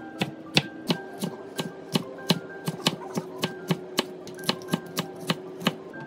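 Kitchen knife slicing green peppers into thin strips on a wooden cutting board: a steady run of crisp knocks, about three a second, over soft background music.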